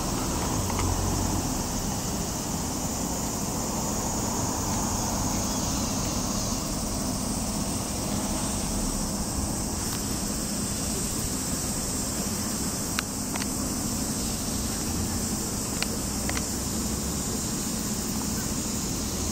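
Car traffic passing along a street, a steady wash of engine and tyre noise, with a few faint sharp clicks in the second half.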